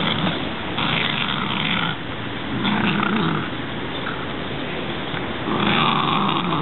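A Welsh Terrier growling in rough bursts about a second long while gnawing and tugging at a tree branch.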